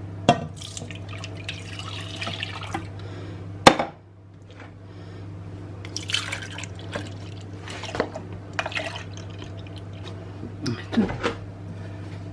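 Milk pouring from a carton into a plastic measuring jug in several separate pours, with a sharp knock a few seconds in. A steady low hum runs underneath.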